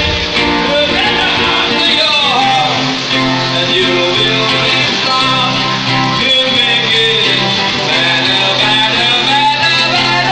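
Live rock music led by an amplified acoustic guitar, with singing.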